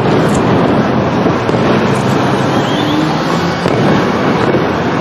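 Aerial fireworks going off in a dense, continuous barrage of bangs and crackling.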